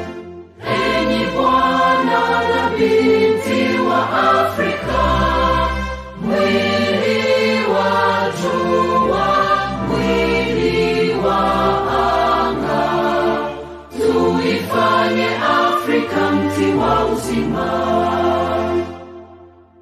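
A choir singing with musical backing, in sung phrases broken by short pauses about six and fourteen seconds in, fading out near the end.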